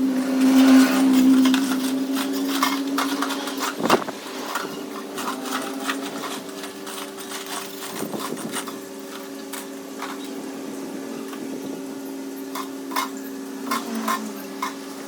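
Metal tools and engine parts clinking and tapping in irregular short knocks, the sharpest about four seconds in, over a steady machine hum.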